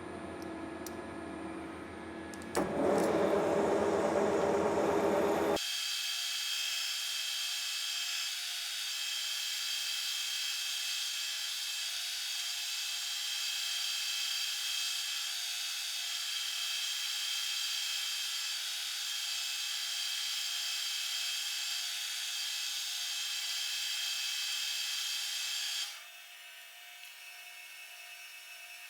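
A metalworking machine tool running. A loud, rough cutting noise starts about two and a half seconds in and lasts about three seconds, then the sound changes abruptly to a steady whine of high tones. It drops much quieter about three seconds before the end.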